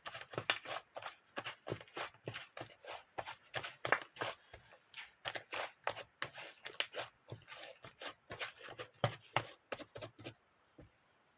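Rapid crunching and scraping strokes, several a second, that stop about ten seconds in.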